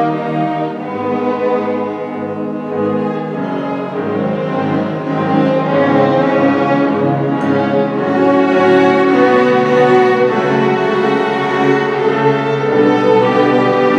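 String ensemble of violins and cellos playing classical music together, bowing sustained notes; a softer passage early gives way to louder playing about six seconds in.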